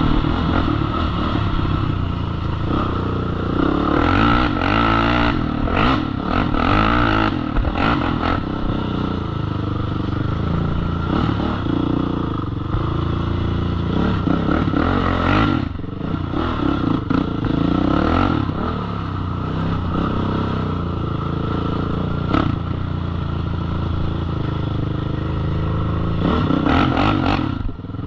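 Honda TRX450ER quad's single-cylinder four-stroke engine running under way on a dirt trail, revving up and easing off with the throttle, with rattles and knocks from the machine over rough ground.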